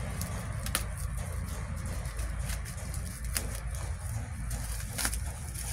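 Scissors snipping and plastic parcel wrapping being cut and handled: a few sharp clicks and rustles over a steady low rumble.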